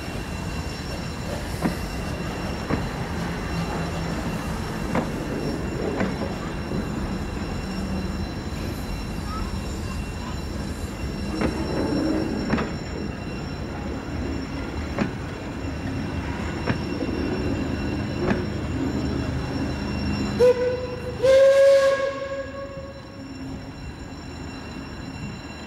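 Steam train's coaches rolling past at low speed, a steady rumble with the wheels clicking over rail joints about once a second. Near the end the locomotive's whistle sounds, a short toot and then a longer, louder blast, and the rumble fades as the train draws away.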